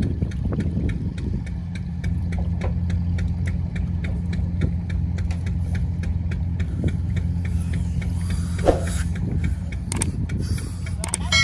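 An engine idling steadily: a low, even hum with regular light clicks.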